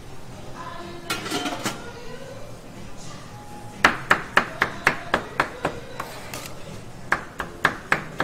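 Chef's knife chopping grilled chicken on a wooden cutting board: quick, even strikes about four a second, one run of about eight, then a short pause and a second run of about five near the end.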